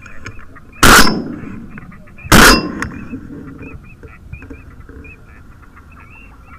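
Two shotgun shots about a second and a half apart, each a very loud sharp blast with a short ringing tail, heard from right at the gun.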